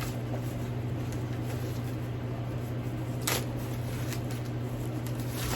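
A steady low hum with two brief rustles, about three seconds in and near the end, as a handbag and its packaging are handled.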